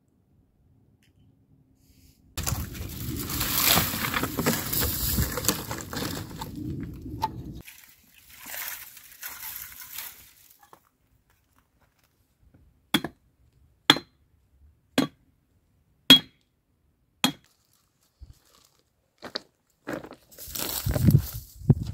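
Dry dead wood being worked: five sharp, evenly spaced cracks about a second apart, after a stretch of rough rustling noise. Near the end, dry branches and gravel crunch as a dead trunk is hauled.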